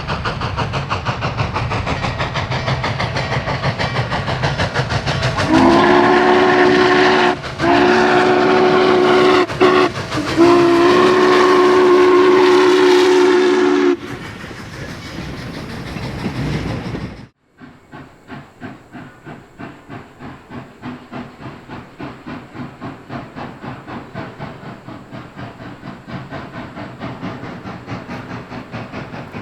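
Steam locomotive working hard, its exhaust beating rhythmically from the stack. Partway through, its whistle sounds a chord of several notes in three blasts, the last about four seconds long. After a sudden cut, another steam locomotive exhausts more quietly at about two beats a second.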